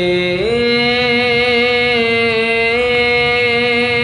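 Sozkhwani, a Shia mourning chant, sung by a male voice without instruments: one long held note that steps up in pitch about half a second in, then holds with a slight waver.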